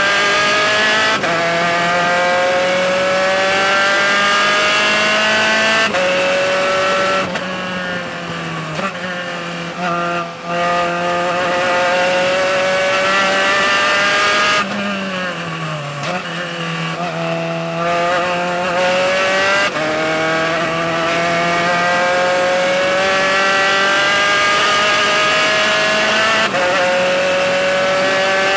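Onboard sound of a Spec Racer Ford's four-cylinder race engine under hard acceleration. Its pitch climbs through each gear and drops suddenly at each upshift. In the middle stretch the pitch falls and the sound eases as the throttle comes off, then it builds again to an upshift near the end.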